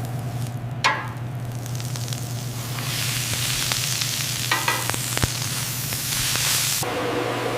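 Food sizzling as it fries, the hiss swelling about three seconds in and cutting off sharply near the end, over a steady low hum, with two short ringing metallic clinks.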